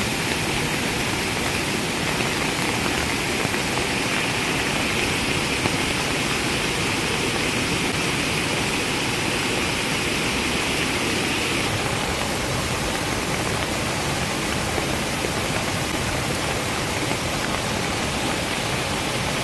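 Muddy floodwater from a debris flow pouring over a roadside retaining wall and rushing across the road: a steady, unbroken rush of water.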